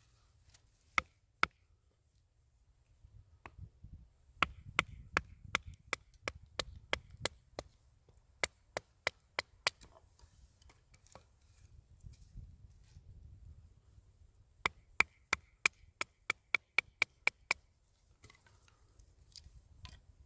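Blade chopping wood with quick, sharp knocks, about three a second, in several runs with short pauses between them.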